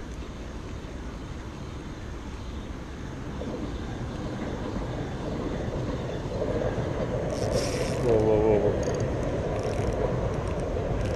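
A spinning reel being cranked to bring in a hooked fish, its gears and line whirring. The sound grows louder about halfway through, with short hissy bursts near the end.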